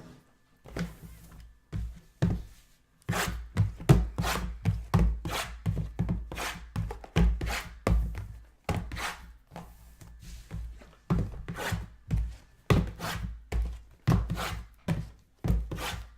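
Background music with a punchy drum beat and heavy bass.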